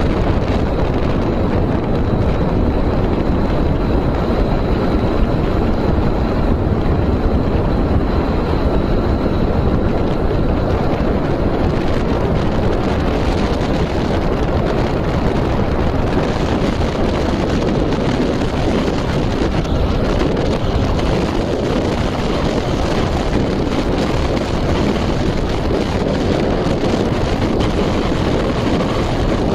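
Steady, loud rushing noise, with wind buffeting the microphone and a faint thin whine in the first third.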